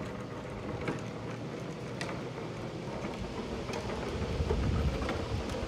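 Hard plastic wheels of a child's ride-on toy truck rumbling over asphalt as it is pushed along, with a few sharp clicks. Wind buffets the microphone with a low rumble over the last second or so.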